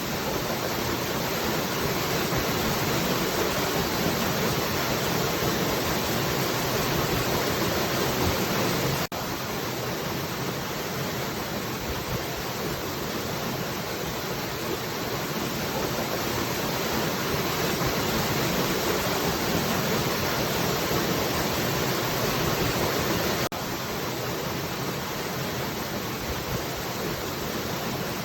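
Steady rushing of falling water, an even hiss with no distinct splashes. It drops out for an instant twice, about nine seconds in and about two-thirds of the way through, and is a little softer after each break.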